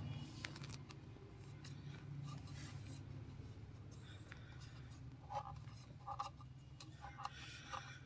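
Faint handling noises as a vacuum cleaner motor is pressed and turned in its rubber seal ring: light scrapes and clicks, with a few short squeaks in the second half, over a low steady hum.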